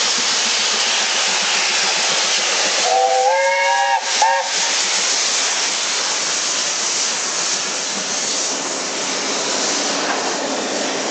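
Steam locomotive 70013 Oliver Cromwell, a BR Standard Class 7 'Britannia' 4-6-2, sounds its whistle as it runs through, a longer blast about three seconds in and then a short one. Under it, the steady rushing noise of the passing train runs on as the coaches roll by.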